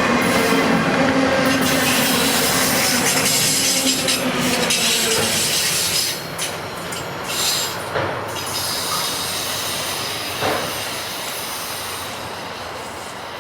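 CSX freight train rolling past, with steady wheel-on-rail noise and a few sharp clacks. A low steady hum stops about five seconds in, and the noise slowly fades as the train moves off.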